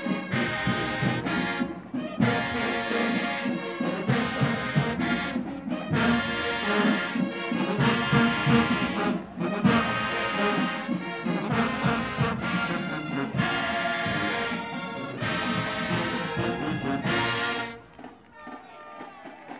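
Marching band brass section playing loudly in full, punchy phrases with brief breaks between them. The band cuts off sharply near the end.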